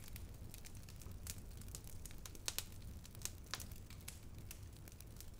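Faint, irregular crackles and sharp clicks, a few each second, over a low steady rumble.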